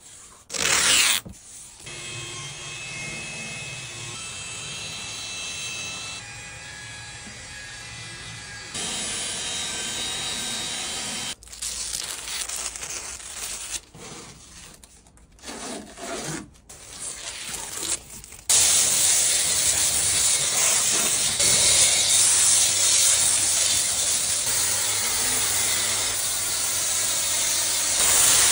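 Several brief quieter handling and rubbing noises, cut short one after another. From about two-thirds of the way in comes the loud, steady hiss of a pressure washer's foam cannon spraying snow foam onto the car.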